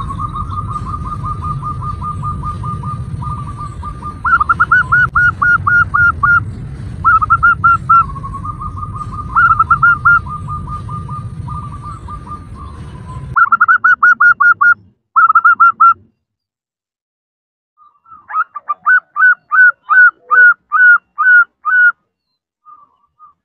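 Zebra dove (perkutut) calling: a fast rolling trill broken by groups of short, pulsed notes that rise in pitch. A low hum sits behind the calls until it cuts off abruptly about halfway through. After a short break, a run of about eight rising notes follows.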